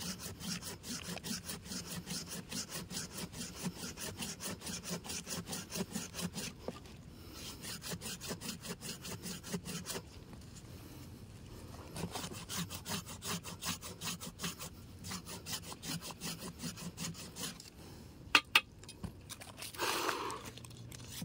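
Curved-blade hand pruning saw cutting through the thick woody root-trunk of an ileng-ileng shrub: quick, even back-and-forth strokes in three runs with short pauses between. Near the end two sharp clicks and a brief knock.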